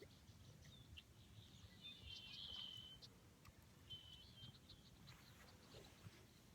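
Faint bird chirping: a longer trilled call about two seconds in and a shorter one about four seconds in, over a quiet outdoor background.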